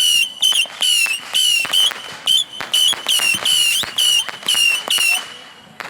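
A consumer whistling firework firing off a rapid string of shrill whistles, about two a second, each with a sharp crack, stopping about five seconds in.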